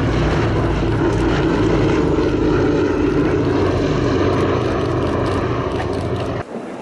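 The four Wright Cyclone radial engines of a B-17 Flying Fortress running in a low flypast, a steady loud propeller drone, strongest about two to three seconds in and easing a little as the bomber moves away. The sound cuts off abruptly near the end.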